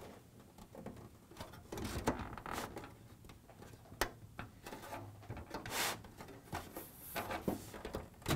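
Hard, brittle vintage plastic rubbing and scraping as a wall panel is worked down into the slots of a 1986 Hasbro G.I. Joe Cobra Terror Drome base, with scattered small knocks and clicks of plastic on plastic, the sharpest about four seconds in.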